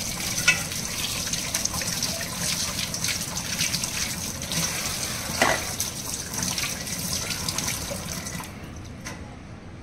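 Kitchen tap running into a sink while potatoes are rinsed and rubbed by hand, with a few light knocks. The running water stops near the end.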